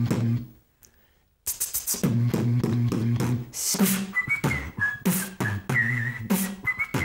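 Human beatbox: a hummed bass line with vocal kick and snare sounds. The beat breaks off for under a second about a second in, then restarts. From about four seconds in, a high whistled melody plays over it.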